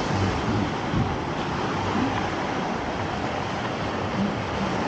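Sea surf washing onto the beach, with wind, as a steady rushing noise.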